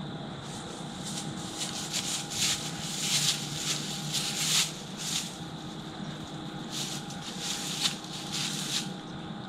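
Irregular rustling and scuffing in dry grass, heaviest from about two to five seconds in and again near the end, as a white-tailed buck steps through the swamp grass just below.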